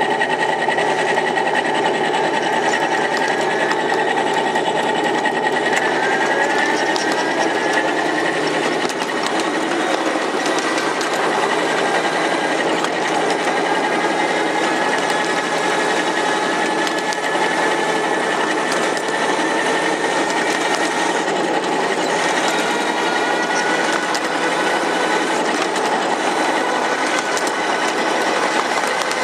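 7.5-inch gauge ride-on box cab locomotive running along the track: a steady mechanical whir from its drive and wheels, with a faint whine that shifts slightly in pitch.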